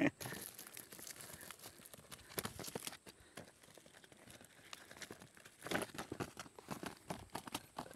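Scratchy rustling and crinkling of cardboard egg-tray pieces and a plastic crate as a hand rummages among live crickets kept as bait, in a string of small irregular clicks, busiest near the start and again past the middle.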